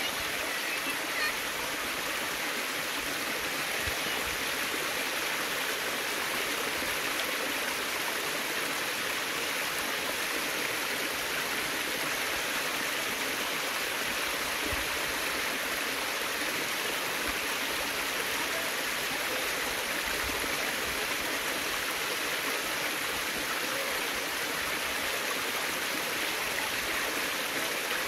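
A small stream of water running and splashing down a mossy rock channel in a thin cascade: a steady rush of water.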